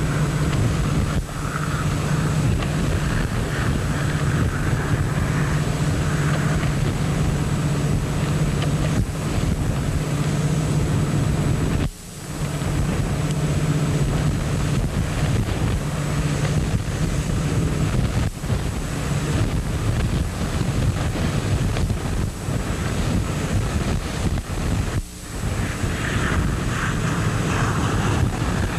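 Wind blowing across the camera's microphone: a steady, gusty rushing noise with a low steady hum beneath it. The sound drops out briefly twice, about twelve seconds in and near the end.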